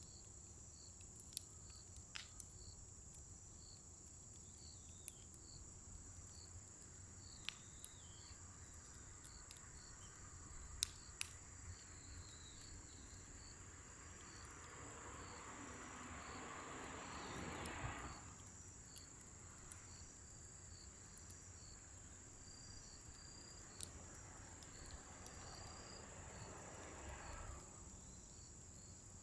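Scrap-wood fire crackling with scattered sharp pops, over a steady high trill of crickets. Twice a rush of noise swells and then stops: once ending abruptly about halfway through, and again near the end.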